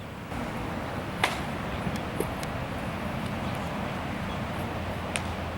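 Steady outdoor background noise, with a sharp, loud crack about a second in and a fainter one near the end.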